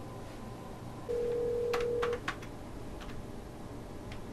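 Telephone ringback tone heard through the handset: one steady, single-pitched ring of about a second, starting about a second in, while the call waits to be answered.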